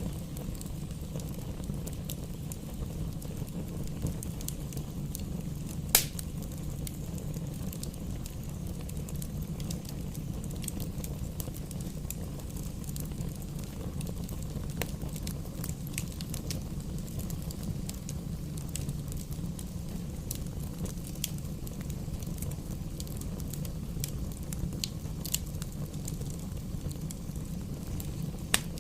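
Wood fire burning in a fireplace: a steady low rumble of flames with scattered crackles and pops, one sharp pop louder than the rest about six seconds in.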